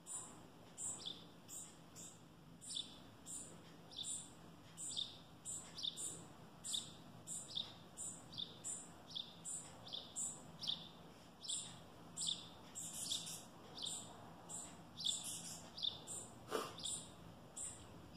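Small sparrow chirping: short high calls, each dropping in pitch, repeated about twice a second, typical of a fledgling begging as its parent feeds it. A brief soft knock sounds near the end.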